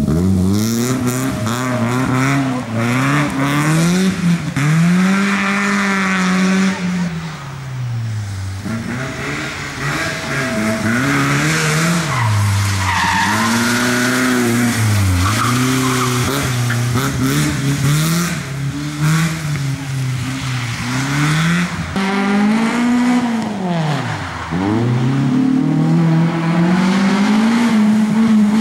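BMW E30 rally car driven hard, its engine revving up and dropping back again and again through gear changes and corners, with tyres squealing. A second rally car takes over in the same way for the last few seconds.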